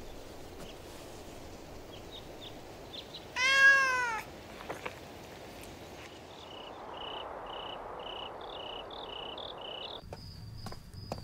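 A cat meows once, loudly, a little over three seconds in, its pitch rising and then falling. Later comes a regular high chirping, a few pulses a second.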